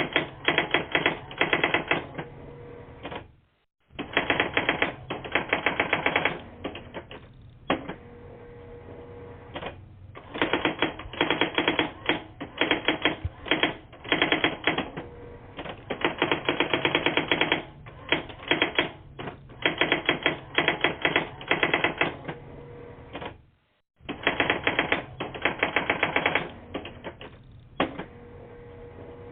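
Rapid typewriter-like clacking in bursts of a few seconds with short pauses between them, heard through a narrow telephone voicemail line. The line drops out to silence twice for a moment.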